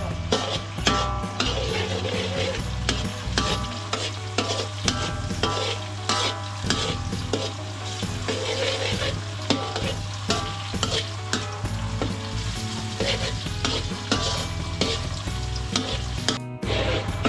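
Stir-frying in a steel wok: a metal ladle scrapes and clinks against the wok again and again while chopped lemongrass, chili and garlic sizzle in the hot pan. The sound cuts out briefly near the end.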